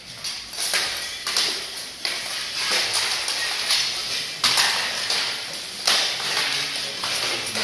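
Armored combat with polearms: irregular metallic clashes and clanks as weapons strike steel plate armor and each other, each hit ringing briefly, with the loudest blows a little past the middle and near the end.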